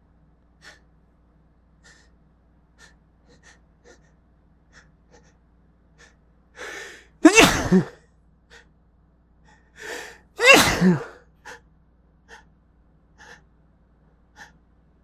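A person sneezing twice, deliberately induced, about three seconds apart, each loud sneeze coming after a sharp in-breath. Faint short sounds come before and between the sneezes over a low steady hum.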